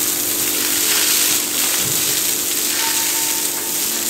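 Jet of water from a hose hissing as it sprays onto a cow's hoof held up in a trimming chute, washing the dirt off the sole before it is examined, over a steady low machine hum.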